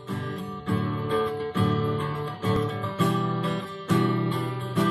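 Acoustic guitar strummed in a steady rhythm, full chords ringing, with a strong downstroke about once a second and lighter strums between.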